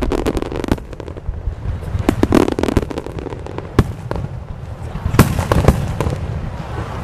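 Aerial fireworks bursting in clusters of sharp bangs and crackle over a low rumble. There is a volley at the start, another about two seconds in, a single bang near four seconds, and a loud cluster a little after five seconds.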